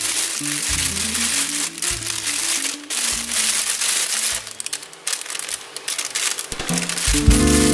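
Thin plastic piping bag crinkling and rustling as it is handled and rolled up, with background music playing under it.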